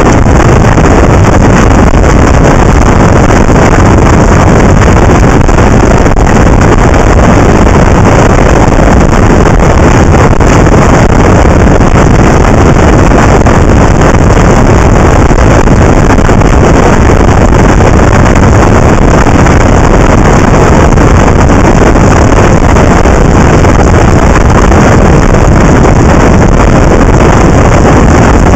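Wind rushing over the microphone of a camera on a moving motorcycle at road speed, a loud, steady rush of noise with no clear engine note above it.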